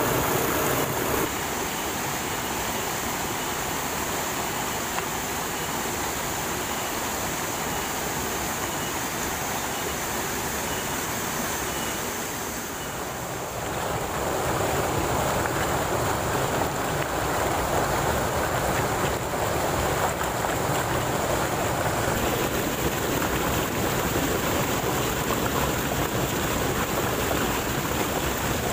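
Small waterfall cascading over rocks, a steady rush of splashing water that dips briefly in level about a second in and again near the middle before running a little louder.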